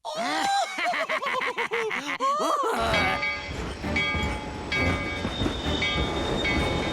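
A quick run of repeated rising-and-falling pitched notes, then a cartoon train running with a steady low rumble and a held horn-like tone from about three seconds in.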